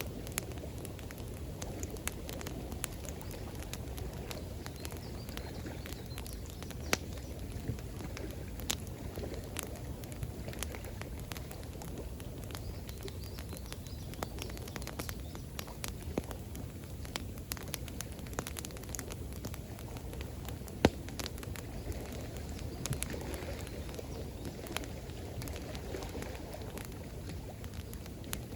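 Campfire crackling and popping, with a few sharper, louder pops, over a steady low sound of flowing water.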